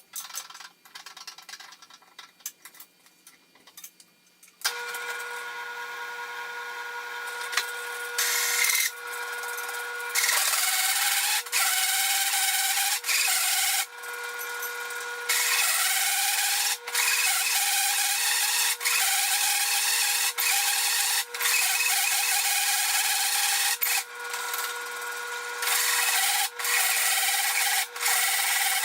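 A few light clicks of handling, then about five seconds in a power tool motor starts with a steady high hum and runs on, cutting steel plate in repeated loud stretches of harsh hissing noise separated by short, lighter pauses.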